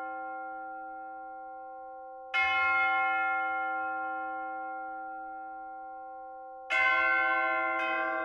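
Large bells tolling: each stroke rings out with a long, slowly fading hum. Strokes fall about two seconds in and again near seven seconds, and a differently pitched bell joins near the end.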